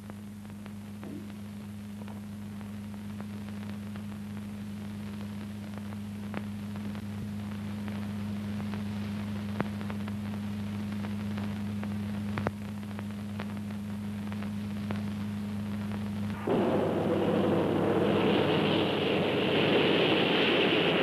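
Steady low hum with scattered clicks from an old film soundtrack. About sixteen seconds in, a sudden, louder rush of jet engine noise from a swept-wing jet bomber on the runway takes over, and its higher part grows stronger a couple of seconds later.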